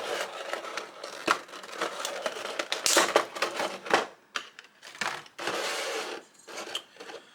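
Plastic blister packaging crinkling and clicking as it is handled and pulled open, a string of sharp clicks and crackles with a longer rustle near the end.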